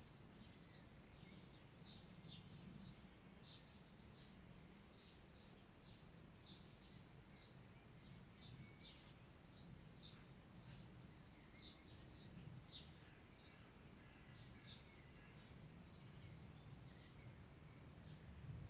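Faint woodland birdsong: several birds giving many short, high chirps and calls throughout, over a steady low rumble.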